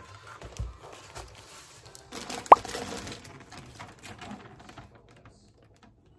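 Packaged groceries being handled: light knocks and rustles of plastic packaging and a cardboard produce box, with one short sharp pop about two and a half seconds in.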